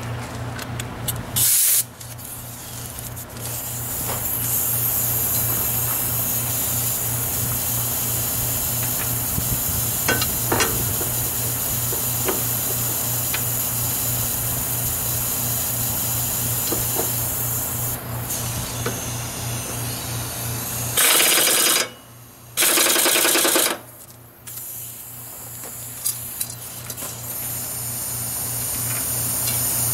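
Lawn mower blade being sharpened on a power grinder: a steady grinding hiss over the hum of a shop fan. Two loud short bursts of grinding come near the end.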